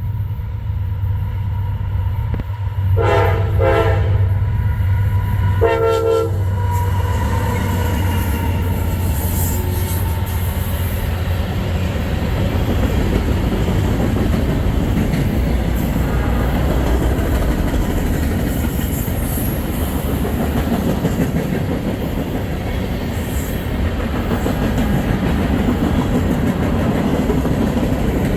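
A diesel freight train passing: the locomotive sounds its horn in three short blasts over the first several seconds, two close together and then one more. A long steady rumble and clatter of the freight cars rolling by follows.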